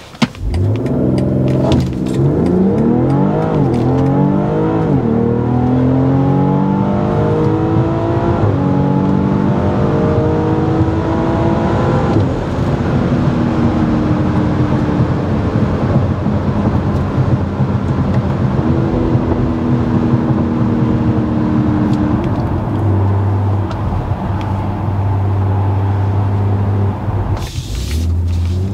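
2021 BMW X3 M40i's 3.0-litre twin-scroll turbocharged straight-six with stock exhaust, heard from inside the cabin during a launch from a standstill. The revs climb hard and drop back at several quick upshifts over the first twelve seconds or so. It then settles into a steadier pull with a low drone and road noise, dips briefly near the end and rises again.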